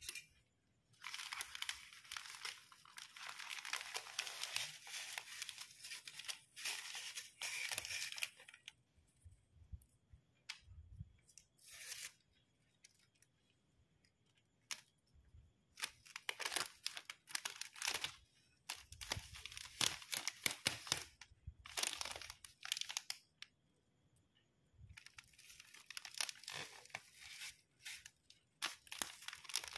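Plastic bouquet wrapping sheets crinkling and rustling as they are handled and folded: a long stretch of crackling for the first several seconds, then short scattered rustles and a fresh burst near the end.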